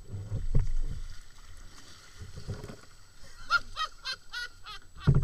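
Kayak being paddled on a small river: low knocks and water sounds from the hull and paddle. About three and a half seconds in, a quick run of short pitched calls, and a sharp thump at the very end.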